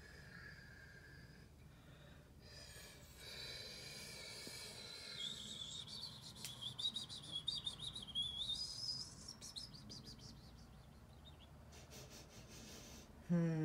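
A bird singing: high wavering chirps and warbles, with a fast trill in the middle.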